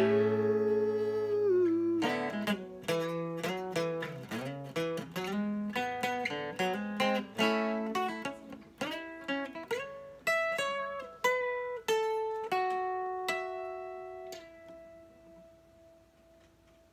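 Hollow-body archtop guitar playing a closing instrumental passage of picked notes and chords. It opens on a held chord with a bent note, and the notes grow sparser toward the end. The last note rings out and fades away.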